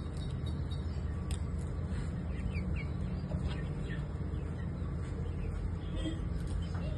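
Chickens calling faintly, a few short high chirps scattered over a steady low rumble.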